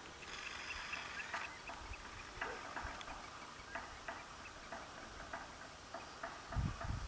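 Faint outdoor ambience: a brief high whine in the first second or so, then scattered faint ticks or chirps, and wind gusting on the microphone near the end.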